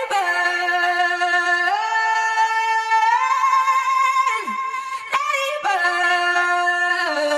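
Sped-up pop song: a female voice holding long sung notes that step up and down in pitch, with little bass underneath.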